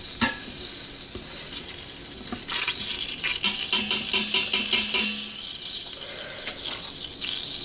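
Butter sizzling in the Instant Pot's stainless inner pot on sauté, with a utensil scraping over the bottom in short bursts, loosening the browned bits of chicken.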